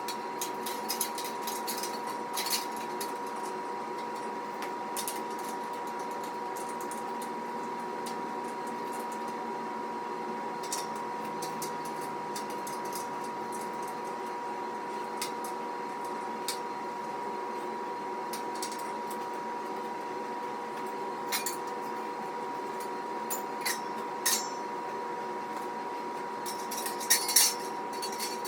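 Scattered metallic clinks and taps of steel rack parts and hardware being handled during assembly, the loudest in a quick cluster near the end, over a steady hum with a constant high tone.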